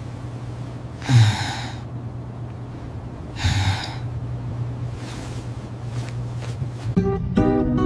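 Two short, loud breathy huffs about two seconds apart over a steady low hum; guitar music begins near the end.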